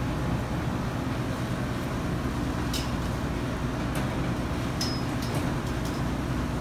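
Steady low rumble of commercial kitchen ventilation, with a few faint short clicks about three to five seconds in.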